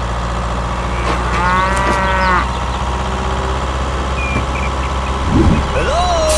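A steady low motor hum, with a drawn-out animal-like call over it about a second in and a shorter, gliding call near the end.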